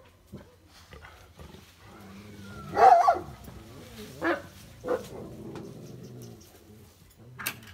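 A dog barking: one loud bark about three seconds in, then two shorter ones a second or two later.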